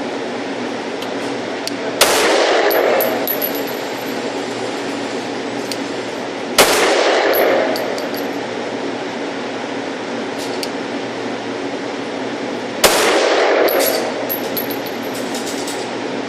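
Three pistol shots several seconds apart, each trailing off in a ringing echo, over a steady background noise.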